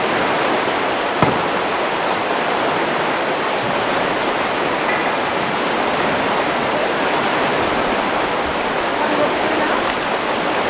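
Fast-flowing river water rushing steadily through the arches of a bridge, with one short knock about a second in.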